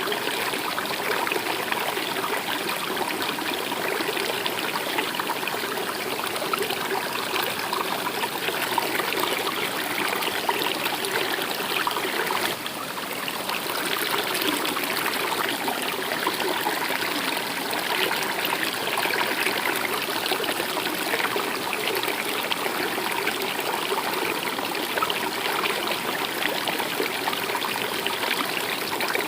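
River water running and trickling in a steady, even wash, with a brief dip in level about twelve seconds in.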